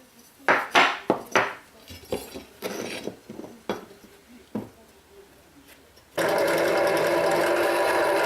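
A series of sharp metallic knocks and clinks from tools or metal parts being handled and set down. About six seconds in, an electric power tool switches on abruptly and runs at a steady speed.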